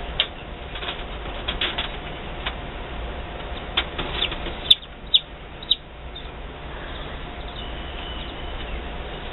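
Newly hatched chicks peeping inside an incubator: scattered short high peeps, the loudest three coming in quick succession a little past the middle, over a steady low hum.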